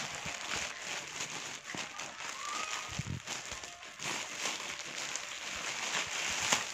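Plastic courier mailer bag crinkling and rustling as hands tear it open and pull the packed jeans out, a run of quick crackles.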